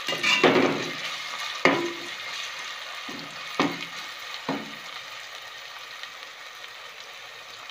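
Sliced onions and ginger-garlic paste sizzling in hot oil, as the paste is fried to cook off its rawness. A spoon scrapes and knocks against the pan a few times in the first half while stirring, and then the sizzling runs on alone.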